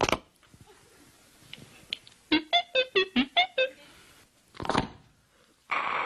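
Seven quick touch-tone dialling beeps of differing pitch, as a seven-digit phone number is dialled, made with the voice. A sharp click comes just before, and a brief rushing noise follows about a second after the beeps.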